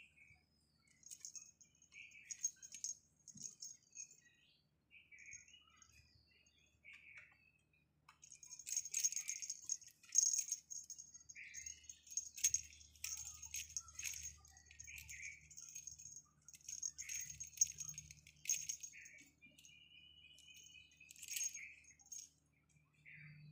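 Small bell in a cat toy jingling and rattling in short, light shakes, busiest about a third of the way in and for several seconds after, with a few faint high chirps in between.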